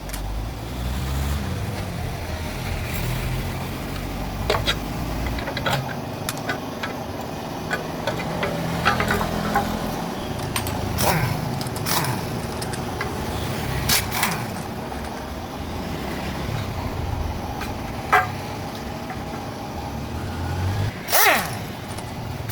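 Scattered sharp metal knocks and taps from hand tools on engine parts, with a heavier strike near the end, over a steady low rumble.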